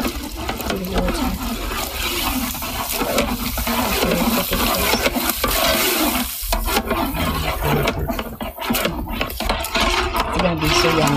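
Sliced potatoes being stirred and mixed in a large cooking pot: scraping and rustling with many small clicks.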